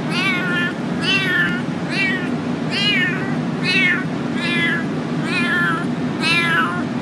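Young ginger kitten meowing over and over, about one meow a second, each call rising then falling in pitch. A steady low hum runs underneath.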